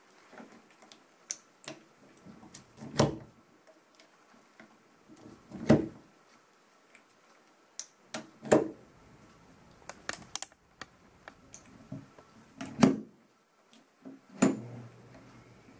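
Scattered sharp clicks and knocks from a dog wheelchair's metal frame being adjusted by hand: the push-button adjusters and tubes of the front struts clicking, and the casters knocking on the tabletop, about a dozen sounds a second or more apart.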